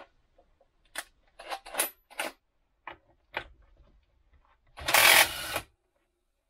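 A few light clicks and knocks, then a burst of just under a second from an electric impact gun hammering a motorcycle engine's clutch nut loose.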